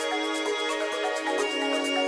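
Instrumental background music: sustained chord notes that shift a little past halfway, over a fast, even high ticking pulse.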